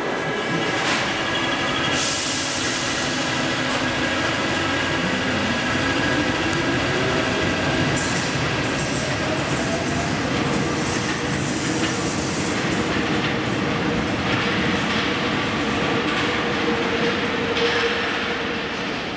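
Modernised Paris Métro MF67 train pulling out of the station. Its motor pitch rises as it accelerates a few seconds in, over continuous wheel and rail noise, with a steady tone holding later as the cars run out into the tunnel.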